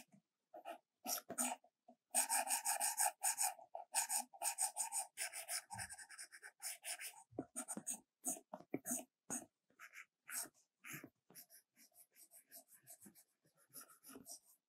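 Stylus drawing on an iPad Pro's glass screen: quick scratchy strokes and taps, a dense run of rapid back-and-forth strokes about two seconds in, then sparser short strokes and ticks.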